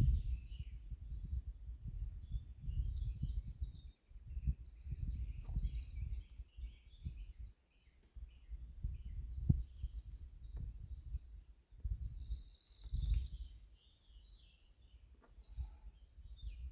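Gusty low rumble of wind on the microphone, with small songbirds singing high, repeated trilling phrases on and off, and a few faint clicks.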